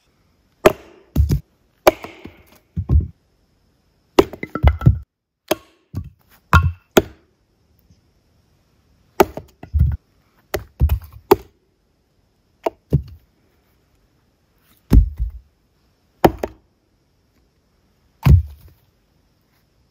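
A hatchet chopping firewood on a log chopping block: about twenty sharp blows at an uneven pace, some in quick pairs, with short pauses between groups.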